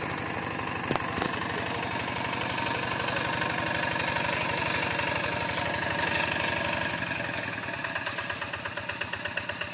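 Single-cylinder diesel engine of a two-wheel hand tractor running steadily while pulling a moldboard plough, with two short sharp knocks about a second in. Near the end its beat becomes more distinct and slightly quieter, about seven pulses a second.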